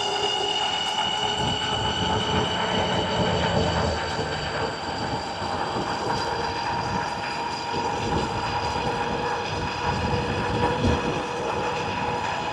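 Aniioki A8 e-bike's hub motors whining steadily at high speed, the whine climbing a little in the first few seconds, over the rumble of tyres and wind.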